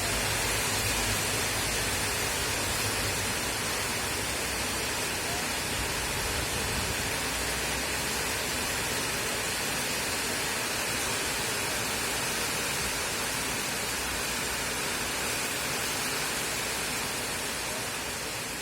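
Steady rain falling, an even hiss with some low rumble in the first half.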